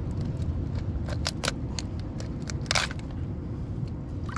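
Crab shells clicking and cracking as a freshly killed crab is handled for cleaning: a few sharp clicks about a second in and a louder crack near three seconds in, over a steady low background rumble.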